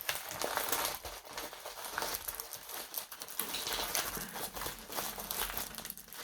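Plastic packaging crinkling and rustling as it is handled, with irregular crackles throughout.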